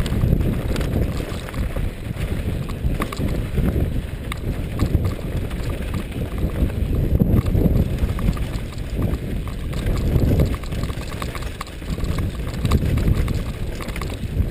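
A mountain bike rattling and clattering down a stony dirt trail, with many small knocks from tyres and frame over bumps and loose stones. A steady low rush of wind buffets the helmet-mounted camera's microphone.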